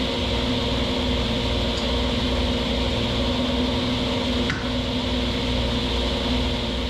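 Table saw running steadily, its motor and spinning blade giving a constant hum with a hiss above it. A faint tick comes about four and a half seconds in.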